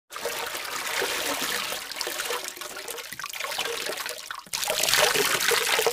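Rushing, splashing water sound effect, a steady gush that dips briefly and comes back louder about four and a half seconds in.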